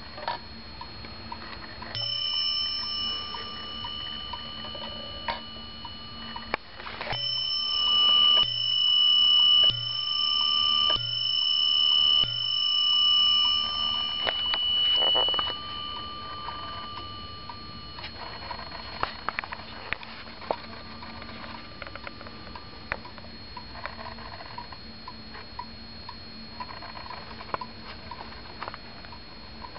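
Warmink Zaanse wall clock striking its bell: a single strike about two seconds in, then five strikes a little over a second apart, each ringing on and fading out. The clock's movement ticks steadily underneath.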